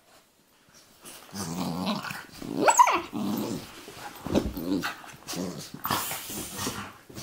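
A golden retriever and a Labrador puppy growl in play as they wrestle, a string of low, rough growls starting about a second in. A sharp, high yelp comes near three seconds in and is the loudest moment.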